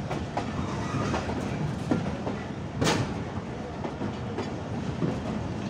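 Khyber Mail passenger train rolling slowly out of a station, heard from aboard: a steady rumble with wheels clacking over rail joints, the sharpest clack about three seconds in.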